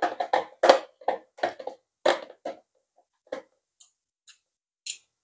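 Two metal forks clicking and scraping against a plastic tub as they toss shredded boiled chicken: a quick, irregular run of clatters for the first two and a half seconds, then a few sparser taps and light ticks.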